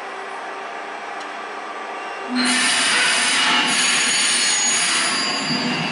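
The 1911 forward triple-expansion steam engine of SS Chief Wawatam turning over with a steady mechanical hum. About two seconds in, a much louder rushing, clattering sound with several high ringing tones sets in and keeps going.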